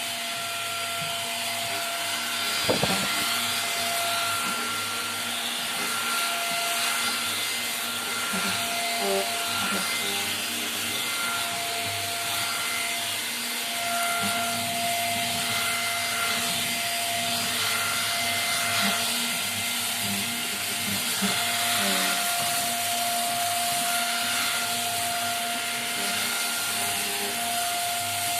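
Rowenta Air Force Flex 560 cordless stick vacuum running steadily, a constant hiss of airflow with a high motor whine, with small rattles as it is pushed along the floor. A sharp knock about three seconds in.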